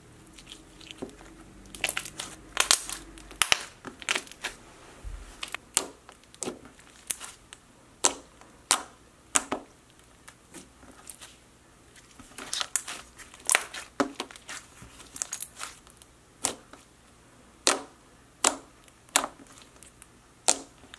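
Thick, dough-like bread-texture slime being poked and pressed by fingers, giving irregular sharp clicking pops as air pockets burst, a few per second.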